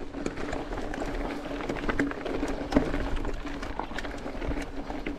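Mountain bike rolling over a rocky trail of loose stones: tyres crunching on gravel, with frequent small clicks and rattles from the bike.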